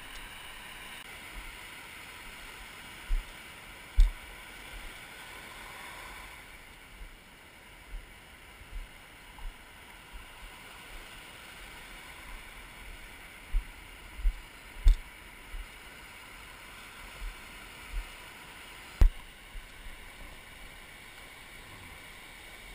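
Shallow surf washing and hissing, with wind buffeting an action-camera microphone and irregular low thumps from bumps on the camera. A few sharper knocks stand out, the loudest about four seconds in, around the middle and a few seconds before the end.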